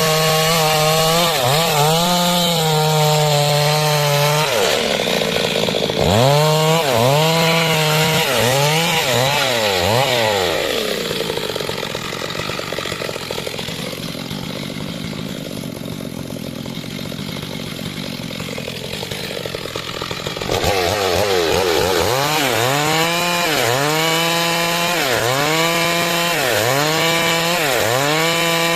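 Stihl MS 382 two-stroke chainsaw cutting wood into planks. Its engine pitch dips and recovers again and again as it works. About eleven seconds in it drops to a quieter, duller sound, and it picks back up loudly at about twenty seconds.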